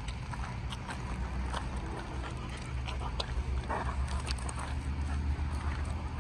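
Footsteps crunching on loose gravel track ballast, a scatter of short crunches over a steady low rumble on the microphone.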